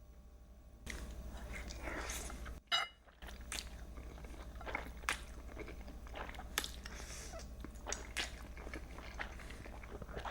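Close-miked eating: a person chewing and biting food, with sharp wet clicks and crunches every second or so. A brief high ring comes about two and a half seconds in.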